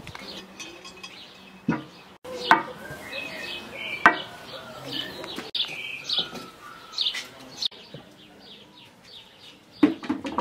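Small birds chirping, with several sharp clinks of kitchenware that ring briefly. The loudest clinks come about two and a half seconds and four seconds in, and again near the end.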